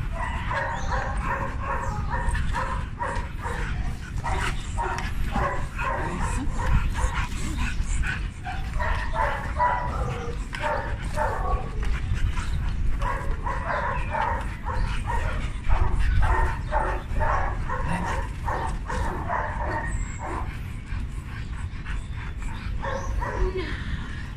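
Dogs barking and yipping rapidly and repeatedly, excited by a bite tug being swung above them, over a steady low rumble.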